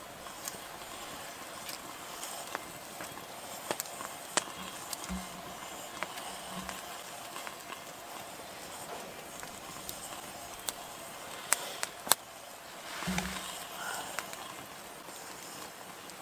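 Wood campfire crackling, with scattered sharp pops over a steady hiss.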